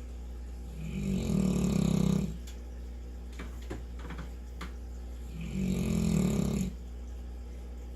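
Two loud, buzzy snores from a sleeping St. Bernard wearing a cone collar. Each snore lasts about a second and a half, one about a second in and the next about four and a half seconds later, in a slow, regular rhythm. The owner takes the cone as the reason she snores so much.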